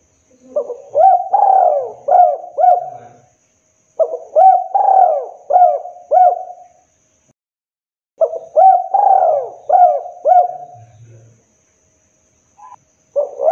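Spotted dove cooing: three phrases of four or five arching coos each, a second or so apart, with a fourth phrase starting near the end.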